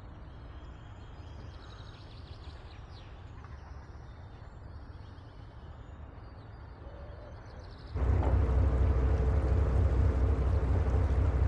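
Quiet harbour ambience, a low rumble with a few faint bird chirps. About eight seconds in it cuts abruptly to the much louder, steady drone of a passing TT-Line car ferry's engines, with a constant hum over a low rumble.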